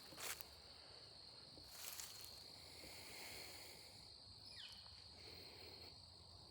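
Near silence outdoors: a faint, steady, high-pitched chirring of insects such as crickets, with two soft brushing sounds in the first two seconds.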